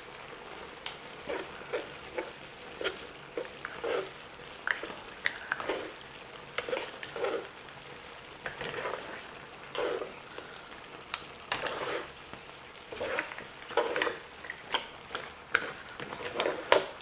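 Black bean noodles and seafood sizzling in a hot pan while being tossed and stirred with chopsticks and a wooden utensil, a steady hiss under irregular clicks and scrapes of the utensils against the pan and food.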